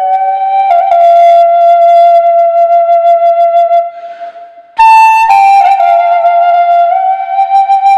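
Figured-maple Native American style flute in G playing a slow melody of long held notes, with reverb and delay added. About four seconds in there is a short breath pause, then a higher note before it settles back down.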